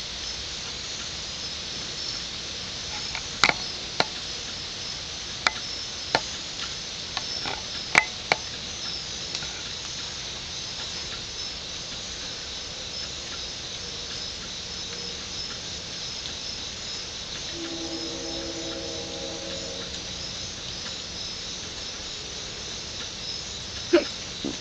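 Steady rainstorm with insects chirping in a constant high trill. A few sharp clicks come in the first third and one near the end, and a short low humming tone sounds about three quarters of the way through.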